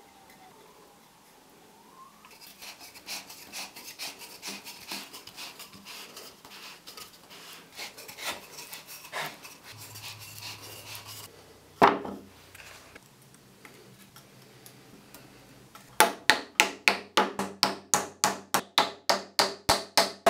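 Wood rubbing and scraping as a glued leg tenon is worked into its hole in the stool seat, with one sharp knock partway through. Near the end, a wooden mallet strikes quickly and evenly, about four or five blows a second, driving a hardwood wedge into the top of the tenon.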